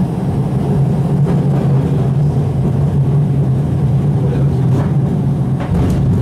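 Electric streetcar running along its track, a steady low hum over the rumble of the wheels on the rails, with a few faint clicks.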